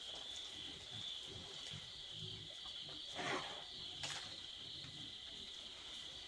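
Insects trilling in a steady, high-pitched chorus, with a short rustling noise about three seconds in and a single click about a second later.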